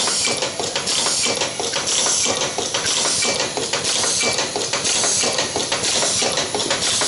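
YFM-013 automatic spring-lock slider and spring assembly machine running: its rotary indexing table and pneumatic stations clatter and click in a repeating cycle about once a second, over a steady hiss.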